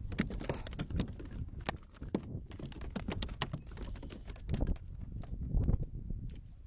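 Rapid, irregular knocks and taps on a kayak as a hooked fish is netted and handled, with a few louder thuds about two-thirds of the way through.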